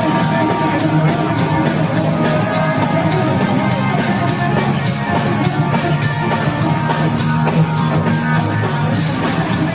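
A rock lick on distorted electric guitar over a backing track with a drum kit, played without a break.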